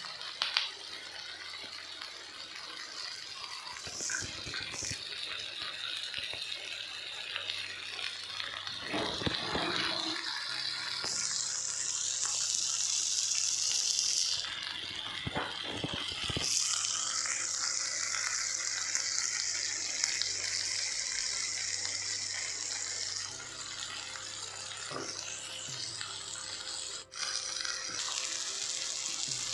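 Sliced onions frying in oil in a nonstick kadai: a steady sizzle that grows louder in stretches, with a few scrapes of a spatula stirring them.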